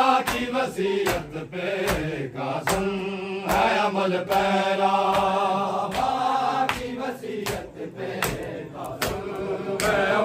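A group of men chanting an Urdu noha lament together, with sharp chest-beating slaps (matam) keeping a slow beat roughly every half second to a second.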